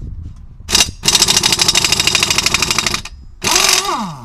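Harbor Freight Earthquake XT (EQ12XT) air impact wrench hammering on a rusted lug nut. A short burst, then about two seconds of rapid, steady hammering, then a second burst near the end whose pitch falls as the tool spins down.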